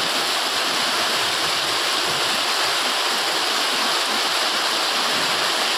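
Heavy rain pouring down onto corrugated roof sheets, a loud, steady, dense hiss with no single drops standing out.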